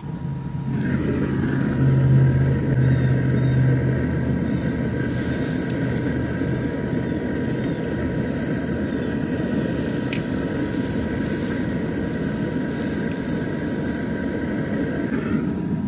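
Pit Boss pellet grill running hot for searing: the steady rumble of its fire and fan, with steaks searing on the grates and a steady whine throughout. Loudest in the first few seconds.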